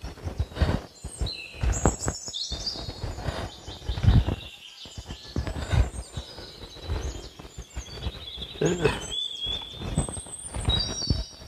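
Forest birds chirping and trilling, with irregular low thumps and rustles of feet shifting on dry leaf litter; the loudest thump comes about four seconds in.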